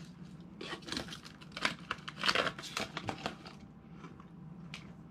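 Crisp wafer cookie crunching and crackling: a quick, dense run of sharp crackles for about three seconds that stops suddenly.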